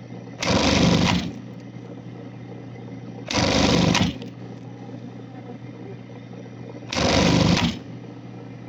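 Industrial sewing machine stitching in three short bursts of under a second each, roughly three seconds apart, with a steady low hum between the bursts.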